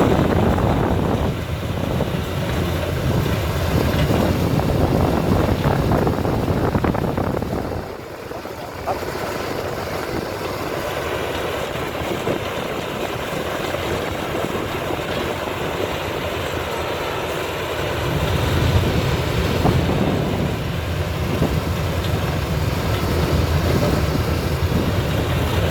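Rice combine harvester running as it cuts, a steady dense engine-and-threshing drone. It drops in level briefly about a third of the way in and grows heavier in the low end again after the middle.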